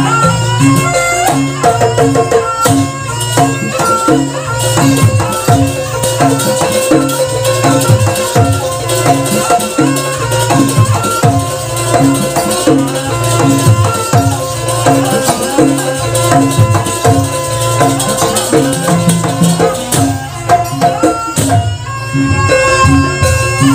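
Live jaranan ensemble playing a sampak: kendang hand drums and gamelan gong-chime percussion in a dense, driving rhythm, with one long held note running through most of the middle.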